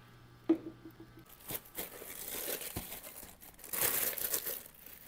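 Plastic bags crinkling in irregular bursts as bagged styrofoam plates and cups are handled and pushed into a box, loudest shortly before the end, with one soft knock midway.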